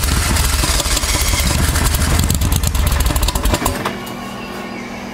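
Briggs & Stratton V-twin engine in a golf cart running loud and rough, having just caught after sitting unused for six months. At about three and a half seconds in it drops off sharply, leaving a quieter steady hum.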